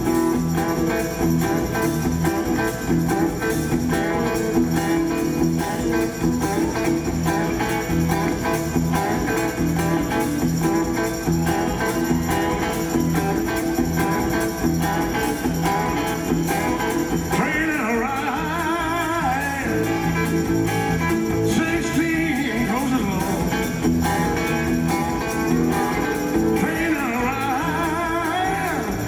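Live rock-and-roll band playing a steady driving beat on electric guitars, bass and drums. A male singer's voice comes in a little past halfway.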